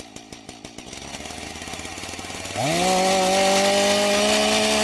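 Chainsaw engine running with rapid firing pulses that speed up. About two and a half seconds in it revs up to a steady, loud, high-pitched run at full throttle.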